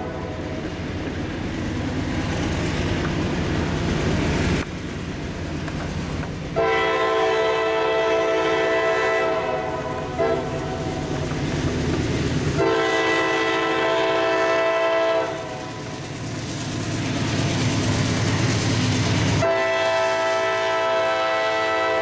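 CSX freight train's diesel locomotive horn, a multi-note chord, sounding long blasts for the grade crossing: one a few seconds in lasting about three and a half seconds, another just past the middle, and a third starting near the end. Between the blasts the locomotives' diesel engines and wheels on the rails rumble as the train approaches and passes.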